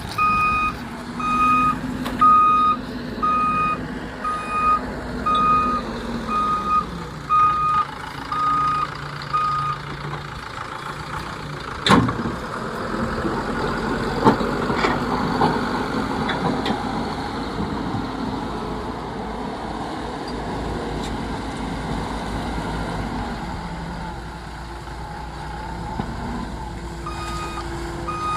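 Heavy earthmoving machine's reversing alarm beeping a little over once a second over its running diesel engine. The beeping stops about a third of the way in and starts again near the end. Midway there is one sharp, loud bang, followed by a few seconds of rattling clatter.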